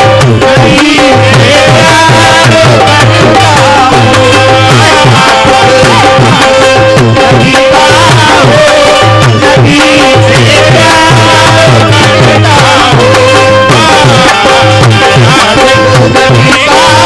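Qawwali music with harmonium and tabla: held harmonium notes over a steady tabla rhythm.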